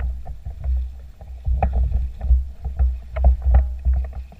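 Water splashing and slapping irregularly against a paddleboard as it is towed through the harbour, over an uneven low rumble.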